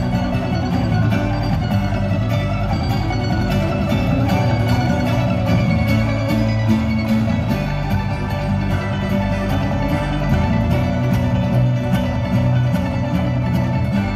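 Live bluegrass band playing a steady, driving tune: picked five-string banjo over strummed acoustic guitars and upright bass.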